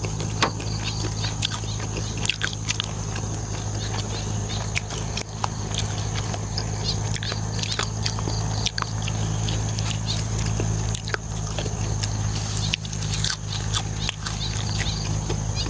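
Close-up chewing with wet lip smacks and many short mouth clicks as someone eats spicy pork offal salad with fresh herbs, over a steady low hum.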